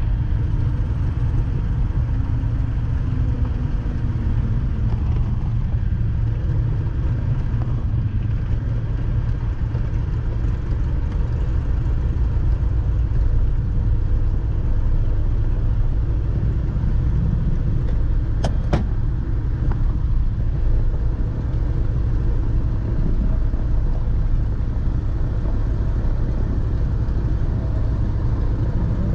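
Piston engines of a light twin-engine airplane running at low power as it rolls along the runway, heard from inside the cabin as a steady low drone that eases down in pitch over the first few seconds. Two sharp clicks come about two-thirds of the way through.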